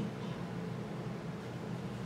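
Steady background hiss with a low hum underneath: room tone, with no distinct event.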